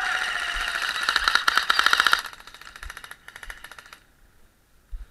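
Airsoft guns firing rapid full-auto bursts, a fast string of shots for about two seconds, then a few shorter bursts that die away about four seconds in.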